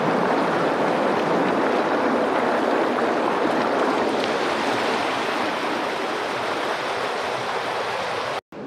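Rushing water of a mountain creek, a steady, even rush with no breaks, cutting off suddenly near the end.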